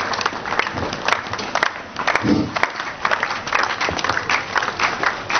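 Audience applauding, with scattered, distinct handclaps.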